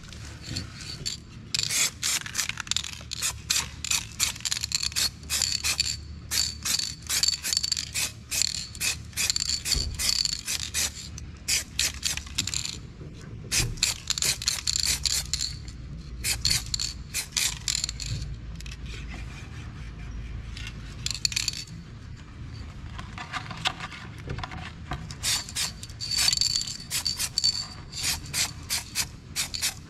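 Aerosol spray-paint can hissing in many short bursts as spots are touched up, with brief pauses between runs of bursts. A low steady rumble sits underneath.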